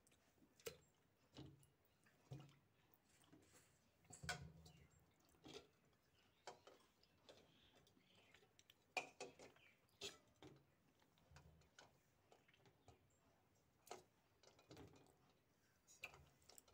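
Faint, scattered knocks and clicks as whole eggs and potato halves are put by hand into an aluminium pressure cooker holding a little water.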